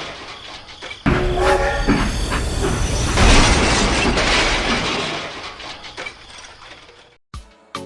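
Train rumbling past with a short horn sound about a second and a half in, the rumble fading away over the last few seconds.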